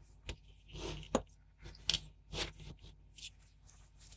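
Handling noise: scattered light clicks, taps and short scrapes as a ZX Spectrum circuit board is turned around on the workbench and pliers are moved over it.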